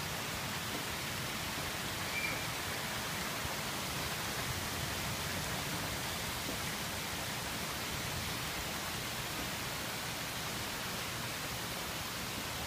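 Heavy rain pouring steadily on trees and grass, an even hiss.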